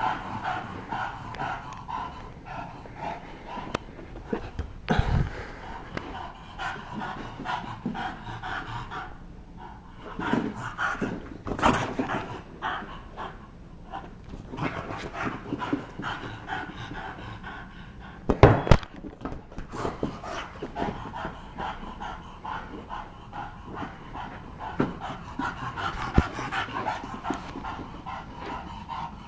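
Bulldog panting hard in rapid rhythmic breaths while playing, with a few louder sudden sounds, the loudest about eighteen seconds in.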